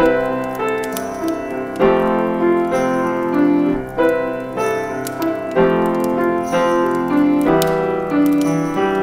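Piano playing a slow instrumental passage of a song, with a new chord struck every one to two seconds and ringing on between them.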